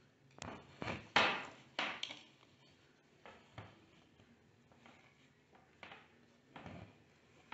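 Metallic embroidery thread being drawn through cloth held taut in an embroidery hoop, with hands brushing the fabric: a few quick swishes about a second in, the loudest, then fainter ones in the middle and near the end.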